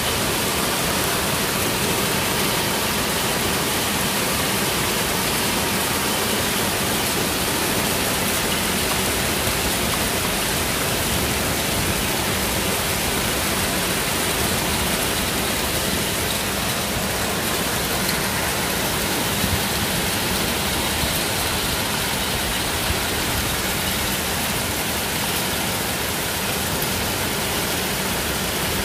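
Heavy downpour of rain mixed with hail pelting a street and a concrete rooftop ledge: a steady, dense hiss without a break.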